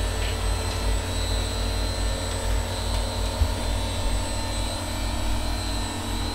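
Steady hum of engine-room machinery, a deep rumble with a thin high whine over it, and a single sharp knock about three and a half seconds in.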